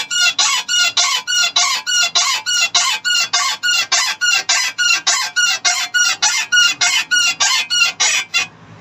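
Car suspension squeaking in a steady rhythm, about three or four short squeaks a second, each dipping in pitch, with a sudden start and stop. It is a chirping squeak that the mechanic puts down to dry ball joints and suspension bushes.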